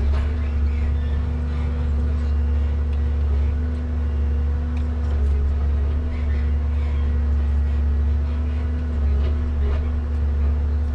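Komatsu 875 forwarder running steadily, heard from inside the cab: a deep engine hum with a steady higher tone as the crane and grapple are worked, and a few light knocks.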